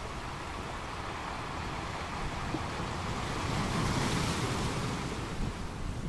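Wind rushing on the microphone over the wash of the sea, swelling for a couple of seconds around the middle.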